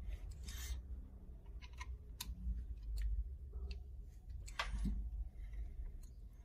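Faint metallic clicks and short scrapes of a small screwdriver working a screw loose in the aluminium frame of a Charter Arms Undercover revolver, with light handling of the gun.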